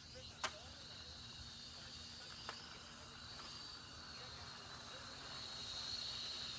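Small toy quadcopter's rotors running with a high-pitched whine that wavers a little and grows louder near the end as the drone comes close. There is a sharp click about half a second in and a fainter one a couple of seconds later.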